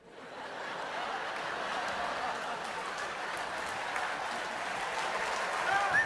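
Theatre audience applauding, swelling up within the first second and holding steady, with a whistle from the crowd near the end.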